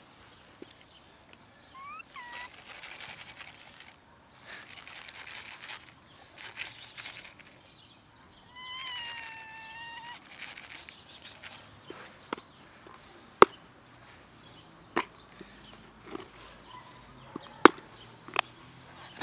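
Stray cats meowing: a short call about two seconds in and a longer, drawn-out meow near the middle. Between the calls there is scuffling noise, and several sharp clicks stand out in the second half.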